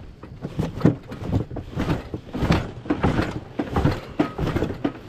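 Irregular scraping and knocking of a small boat's hull as two people shove it along, trying to work it free of the bank into the water.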